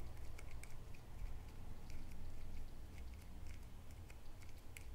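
Faint, irregular light clicks and ticks of a homemade Arduino joystick controller being worked by hand, over a low steady hum.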